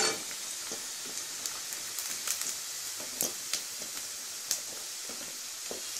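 Boneless chicken pieces deep-frying in hot oil in a kadai: a steady sizzling hiss with sharp pops or ticks now and then, as the fried pieces are lifted out with a slotted steel skimmer.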